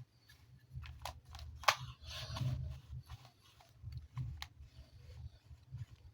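Hands handling plastic toys and packaging: scattered sharp clicks, the loudest about two seconds in, with a brief rustle and low bumps of handling.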